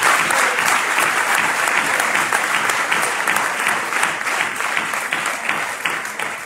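Audience applauding, a dense patter of many hands clapping that gradually dies down toward the end.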